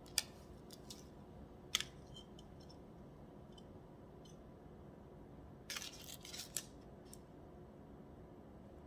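Small sharp clicks and light scrapes of a razor blade being handled and fitted onto the wooden stick of a bread lame: one click near the start, another about two seconds in, and a quick cluster of clicks about six seconds in.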